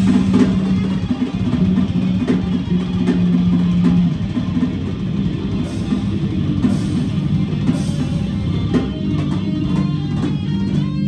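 Live metal band playing electric guitar, bass and drum kit, with long held low notes over drum hits.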